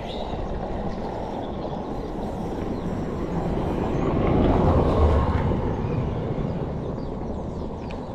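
Wind and road noise rushing over the camera microphone while riding a gravel bike, swelling to a peak about halfway through and then easing.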